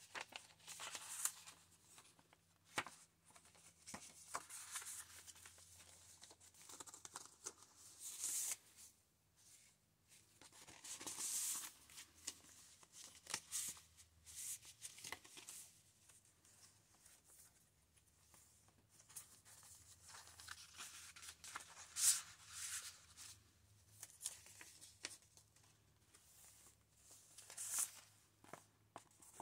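Paper pages, pockets and tucked-in cards of a thick handmade junk journal rustling as they are flipped and handled: soft swishes and paper shuffling every few seconds, with quiet gaps between.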